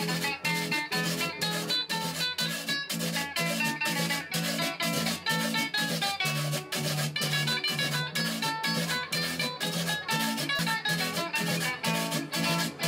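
Trio parrandero music played live: two acoustic guitars, one picking a melody over a bass line, with hand percussion scraped or shaken in a quick, steady rhythm. This is an instrumental passage with no singing.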